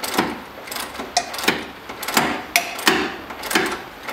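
Half-inch-drive socket ratchet turning an engine-mount nut off its stud, worked back and forth in quick repeated strokes, about two a second, each with the pawl's rapid clicking.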